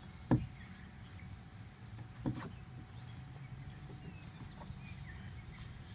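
Two hollow plastic thumps about two seconds apart, the first the louder, as a toddler's hands push and bump the door panel of a plastic playhouse.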